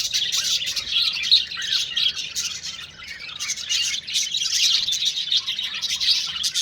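Budgerigars chattering and chirping without a break, a dense stream of short, high warbling chirps.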